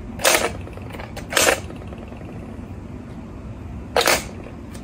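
A hard plastic toy knocked and clattering on a hard floor as a kitten bats and pounces on it: three short knocks, one just after the start, one about a second and a half in, and one about four seconds in.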